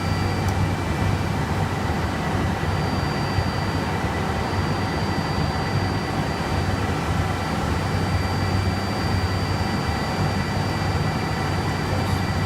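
Steady whir of equipment cooling fans and air handling in a data centre: a constant rushing noise with a low hum and a few thin, steady high whines.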